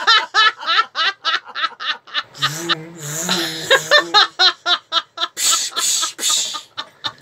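Hearty laughter in quick repeated bursts. About two and a half seconds in comes a low hum lasting about a second, and around six seconds a couple of breathy whooshes.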